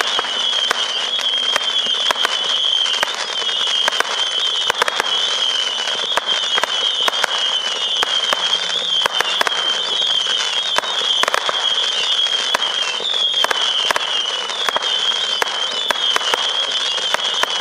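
Saturn missile battery (Winda Star-Spangled Saturn, 440 shots) firing shot after shot without pause: an unbroken, wavering whistle from overlapping whistling tails over a dense crackle, with sharp pops several times a second.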